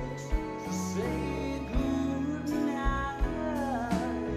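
Live rock band playing a slow song: a male lead voice sings over acoustic guitar and the band, with occasional low drum hits.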